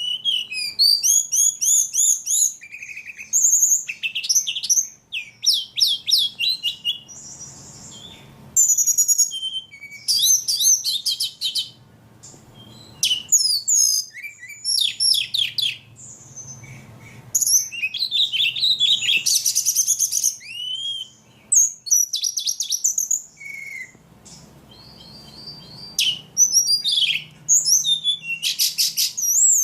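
Ledekan songbird singing hard and almost without pause: bouts of rapid, high chirps and trills broken by short gaps, the vigorous non-stop song that Indonesian keepers call gacor.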